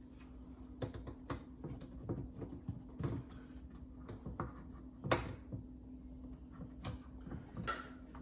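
Plastic parts of a dishwasher's chopper and pump assembly being handled and fitted back together: scattered clicks and light knocks, the loudest about five seconds in. A faint steady hum runs underneath.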